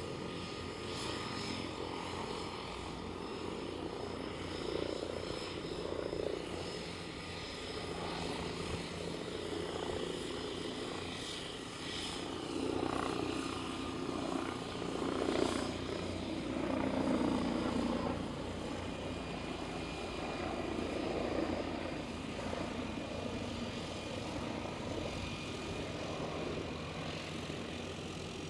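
De Havilland DHC-3 Otter floatplane's engine and propeller running, the sound swelling and easing unevenly.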